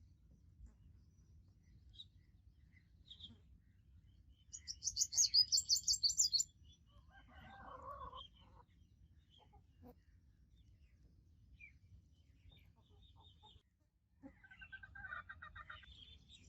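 Poultry-yard bird calls: a loud, rapid, high-pitched chirping trill lasting about two seconds starting about four and a half seconds in, a lower, shorter call around eight seconds, and a run of quick pulsed clucks near the end, over a low steady background rumble.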